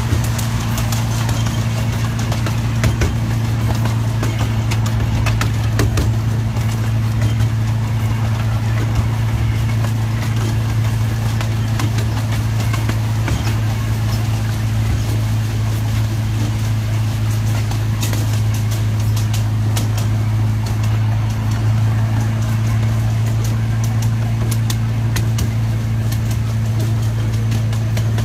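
Miniature train locomotive under way, giving a steady low drone with a fainter overtone that holds the same pitch throughout, mixed with irregular clicks and rattles from the moving train.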